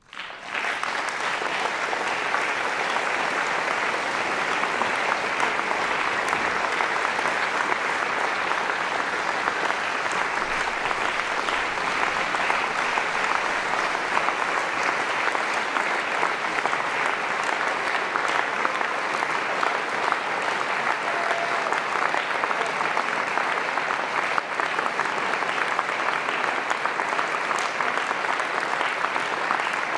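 Large audience applauding at the end of a symphony performance. The applause starts all at once and then goes on steadily.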